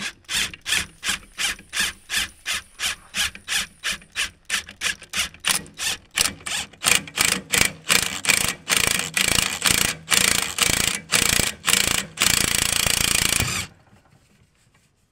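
DeWalt cordless impact wrench driving the screw of a rusted scissor jack that presses down on a small tractor tire to break its bead. A rasping, pulsing sound, about two and a half pulses a second, comes closer together after about eight seconds, runs continuously for the last second and a half, then stops abruptly.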